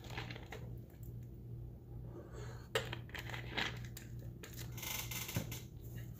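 Faint rustling and a few light clicks from things being handled, over a steady low hum.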